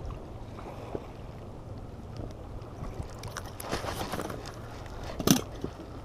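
Low wind rumble and water lapping around a small inflatable boat, with a few small clicks. A rustling swish comes about three and a half seconds in, and a single sharp knock near the end is the loudest sound.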